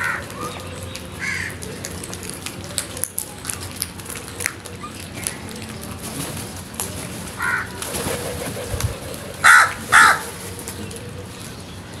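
A flock of house crows calling, with scattered short caws. Two loud, harsh caws come about half a second apart roughly three quarters of the way through.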